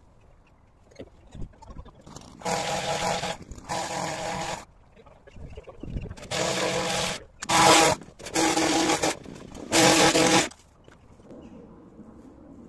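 Petrol long-reach hedge trimmer revved up in six short bursts, each a second or less with quieter gaps between, as it cuts along the top of a tall hedge.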